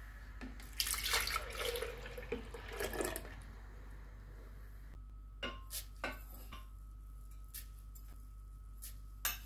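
Milk pouring from a carton into a glass blender jug, splashing for about two and a half seconds. Then a few light, sharp taps and clinks, about one a second, as spoonfuls of rolled oats are added to the jug.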